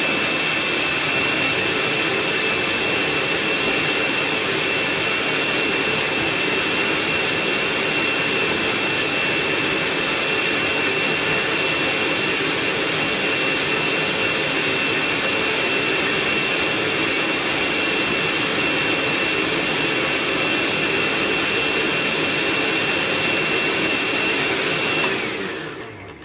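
Countertop blender motor running steadily at full speed with a high whine, blending a ginger mixture into liquid; it winds down and stops near the end.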